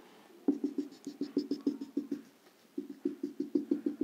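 Dry-erase marker drawing a dashed line on a whiteboard: quick short strokes, each a brief squeaky tap, about seven a second, in two runs with a short pause about two seconds in.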